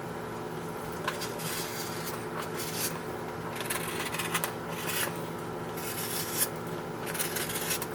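Fabric being cut out by hand: irregular rasping, rubbing strokes of a blade through cloth, with a faint steady hum underneath.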